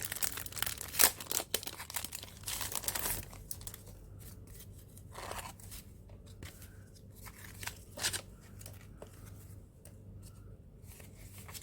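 Plastic packaging and papers being handled, crinkling and rustling. The crinkling is dense for the first three seconds or so, then turns to sparser rustles, with one sharper crackle about eight seconds in.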